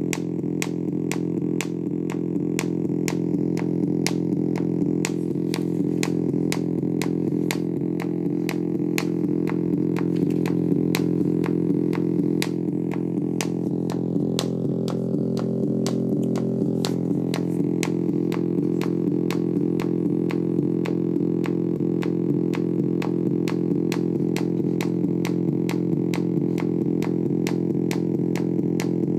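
MFOS Noise Toaster DIY analog synthesizer playing a sustained, rich drone of several held pitches over a steady, regular clicking pulse. About halfway through, the drone wavers before settling again.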